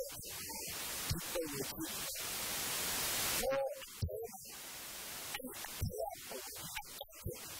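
A man preaching in Burmese through a microphone in short phrases with long pauses. A steady hiss fills the pauses and swells louder the longer each pause lasts.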